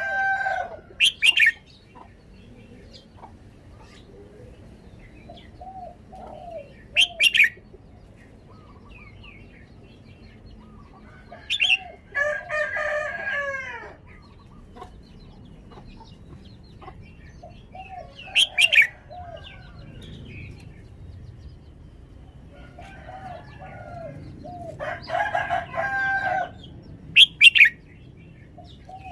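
Red-whiskered bulbul singing short, sharp, high song phrases, five times, several seconds apart. In between, a rooster crows three times, each crow about two seconds long, with softer low clucking calls.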